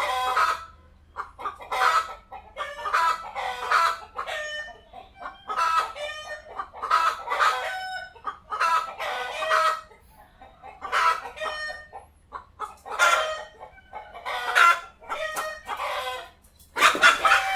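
Chickens clucking in repeated bursts of short calls, one burst about every one to two seconds, with a louder squawking outburst near the end.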